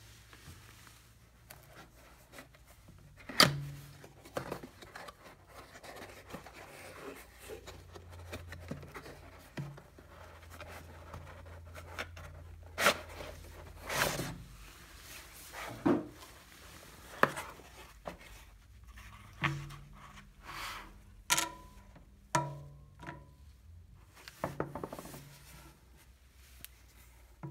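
Cardboard box and molded paper-pulp tray being handled: the tray slides out of the box with soft rubbing and scraping, and a string of knocks and taps follows as pieces are lifted out and set down. Near the end come a few short ringing clinks from the borosilicate glass and walnut pipe.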